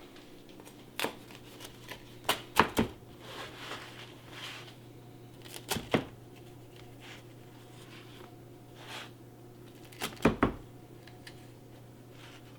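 Crust of a freshly baked pizza crunching and crackling as it is cut and handled: a handful of sharp, crisp crunches, the loudest about two and a half and ten seconds in, over a low steady hum.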